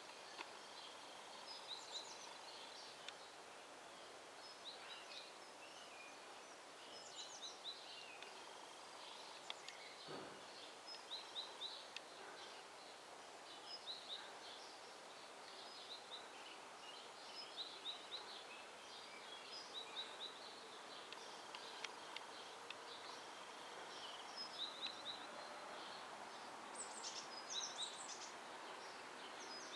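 Small birds chirping in short repeated bursts throughout, over a faint steady background hiss. There is a single sharp knock about ten seconds in.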